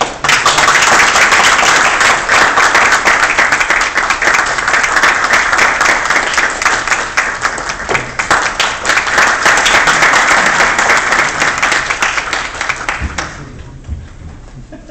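Audience applauding: dense clapping that starts suddenly, holds steady, and dies away about thirteen seconds in.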